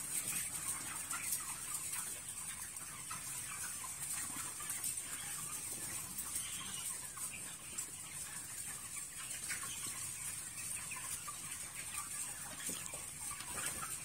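Flock of broiler chickens chattering, a low steady mix of faint clucks and peeps, over a steady high hiss.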